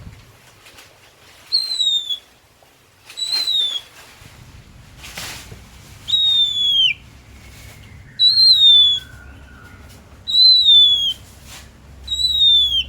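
Oriental magpie-robin (kacer) singing: six loud, clear whistled notes, each falling slightly in pitch, about one every two seconds, with a few short sharp chips between them.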